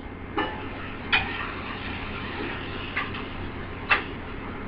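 A few light, irregular clinks and knocks of a utensil against pots on the stove, about a second apart, over steady background noise.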